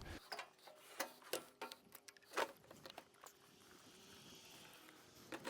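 Faint scattered clicks and rustles of climbing gear and rope as a tree climber comes down.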